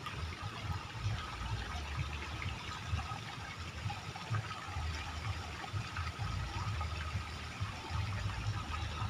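Shallow ditch water running and trickling, a steady wash of noise, under an uneven low rumble.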